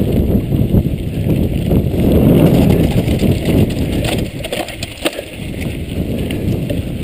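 Mountain bike rolling fast over a dirt singletrack: wind buffeting the camera microphone in a loud low rumble, with tyre noise and the bike knocking and rattling over bumps. The rumble eases a little about halfway through.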